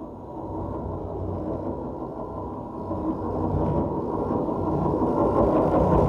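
The velicon, a magnet-and-coil instrument, giving an amplified low buzzing drone as spherical magnets are moved by hand over its plate. The sound sits below about a kilohertz and grows steadily louder.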